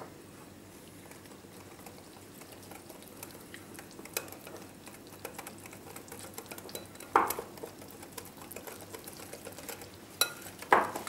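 Wire whisk beating gram-flour batter in a glass bowl: soft, continuous scraping and ticking, with a few louder knocks of the whisk against the bowl, the strongest about seven seconds in and another pair near the end.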